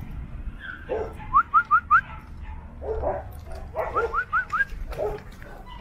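Dogs vocalizing as they greet and sniff each other, with whines and low grumbles. Twice there is a quick run of four short, rising squeaky chirps.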